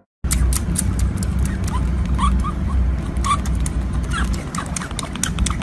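Baby otter suckling from a milk bottle: quick, irregular wet sucking and smacking clicks, with a few short, faint squeaks, over a low rumble.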